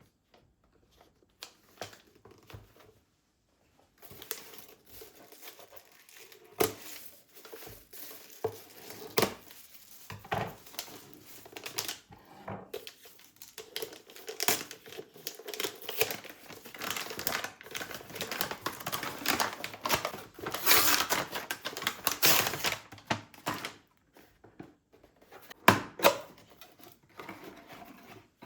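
Crinkling and rustling of something being handled, with many small clicks. The rustling starts about four seconds in, is loudest a few seconds before the end, and a single sharper knock comes near the end.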